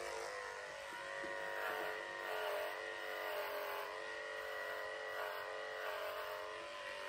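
Electric dog-grooming clippers with a #10 blade running steadily, a buzzing hum that rises and falls a little as they pass through the coat on a Schnauzer's head.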